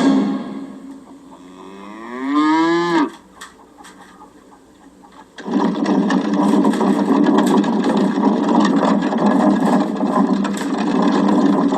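A single drawn-out animal call, like a cow's moo, rising in pitch and breaking off about three seconds in. After a quiet gap, a steady dense din starts about five and a half seconds in.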